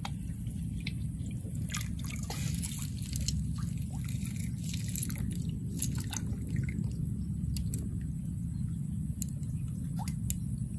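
Small water splashes and drips, scattered and irregular, from hands digging for freshwater clams in shallow muddy water, over a steady low rumble.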